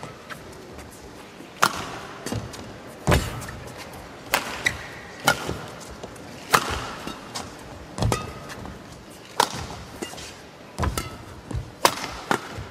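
Badminton rackets striking a shuttlecock back and forth in a fast rally: a run of sharp cracks, about one every second or so, at uneven spacing.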